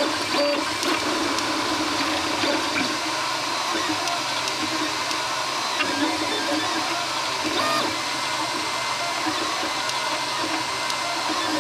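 FlashForge Dreamer 3D printer running: a steady whir of fans and motors with a constant tone and a wavering lower hum, and a few faint clicks from the mechanism.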